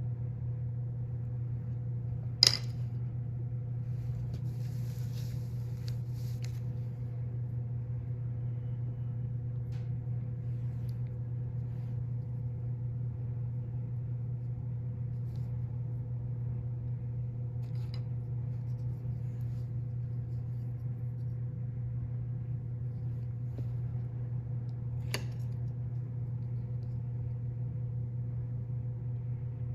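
Steady low hum with a faint steady tone above it, broken by a sharp click about two and a half seconds in and a lighter click near the end.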